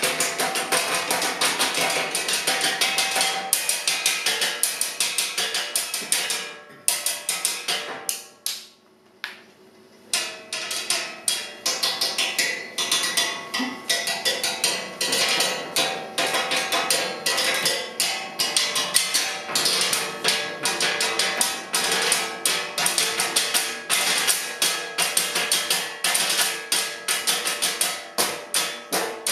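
A percussion trio plays a fast, dense pattern of struck strokes with sticks and mallets on wooden surfaces and tuned bars, some strokes ringing with pitch. The playing nearly stops for about three seconds after roughly seven seconds, then resumes just as busily.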